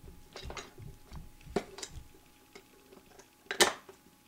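Light metallic clicks and taps of steel pistol parts being handled as the hammer is pressed against its mainspring and worked into the frame of a High Standard Victor .22 pistol, with one louder knock about three and a half seconds in.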